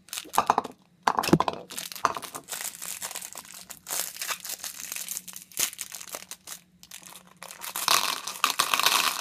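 Plastic candy wrapper crinkling and rustling as a small pack of Runts is torn open and handled, with many quick crackles that grow denser near the end.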